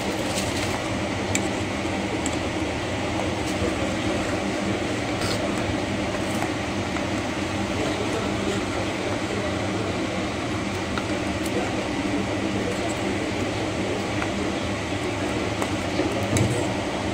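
Steady mechanical hum with an even hiss, unchanging throughout, with a few faint clicks.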